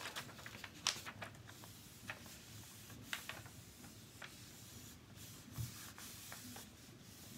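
Folded scrap paper rubbed by hand over cardstock laid on a large inked rubber stamp: a faint scratchy rubbing with a few light taps.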